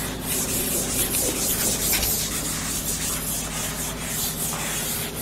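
A chalkboard duster wiping chalk off a board in quick, repeated back-and-forth strokes, a steady scratchy rubbing.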